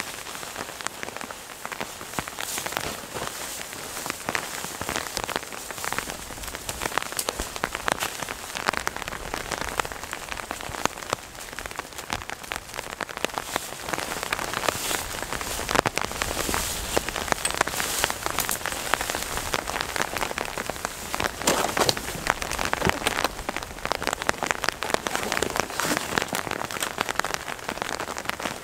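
Steady rain, with many close drop hits ticking through it.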